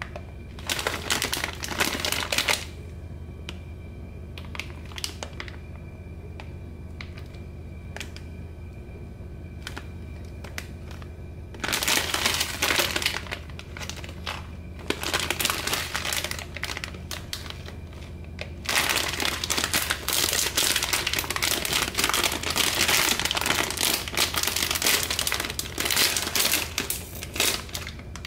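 A metallised plastic snack bag crinkling as it is handled and turned over. It comes in bouts, with a quieter stretch of a few faint clicks about 3 to 12 seconds in. The crinkling is loudest and most continuous over the last third.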